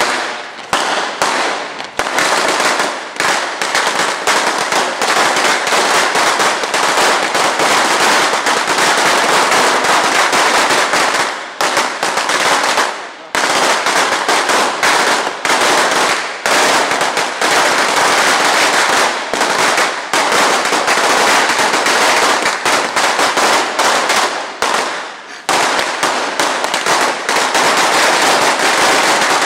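Firecrackers going off in rapid succession, a dense unbroken crackle of sharp bangs that dies down briefly twice, about twelve and twenty-five seconds in, before picking up again.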